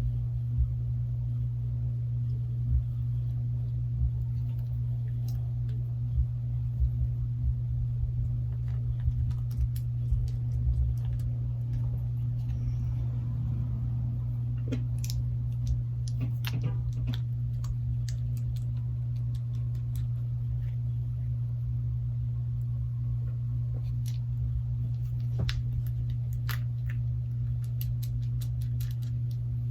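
A steady low electrical hum, with scattered light clicks and taps as small parts are handled during a phone glass repair, in bunches about a third of the way in and again about halfway.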